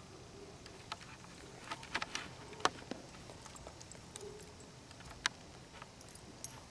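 Scattered sharp clicks and light clinks of a horse's bridle and ring bit being handled at its mouth, with a cluster about two to three seconds in and one more loud click a little after five seconds.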